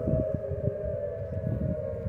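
Outdoor tornado warning siren holding one steady tone that slowly fades, with wind rumbling on the microphone underneath.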